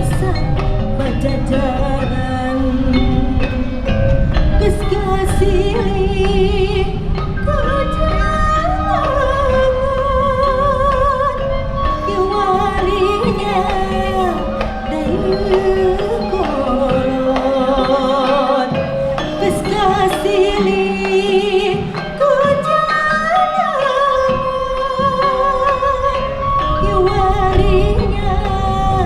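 Sundanese gamelan degung ensemble playing: held, stepped metallophone-like tones under a wavering melody line, with a low steady beat that thins for a few seconds past the middle.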